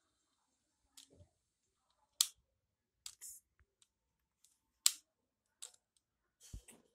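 Sharp mechanical clicks from a small metal toy cap revolver being handled as its cylinder is swung out, with two louder clicks about two and five seconds in. A soft low thump near the end.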